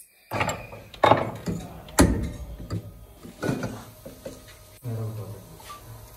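Metal clanks, knocks and scrapes as a spin-dryer motor's housing and end cap are handled and fitted together on a wooden workbench. There is an irregular run of knocks, the sharpest about two seconds in.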